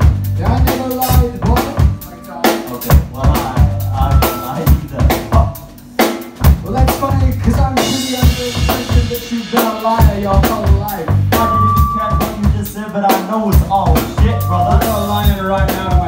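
Rock band playing live: a drum kit keeps a driving beat of bass drum and snare hits under electric guitars.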